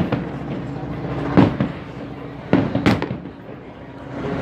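Aerial fireworks shells bursting: four sharp bangs, the last two close together, over a background murmur of voices.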